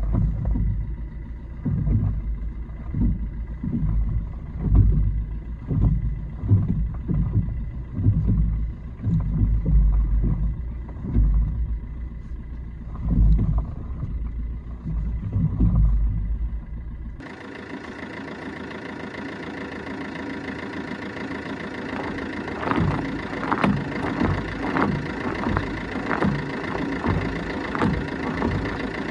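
Fiat Punto Evo's 1.3 JTD diesel engine idling while the front suspension gives uneven deep clunks as the steering is turned left and right, typical of worn ball joints and a faulty control arm bushing. About two-thirds of the way through, the sound changes abruptly: the deep thumps give way to a brighter run of sharp clicks.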